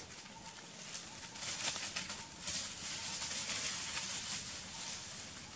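Forest background sound: a high hiss that swells through the middle, scattered crackles and a faint steady tone.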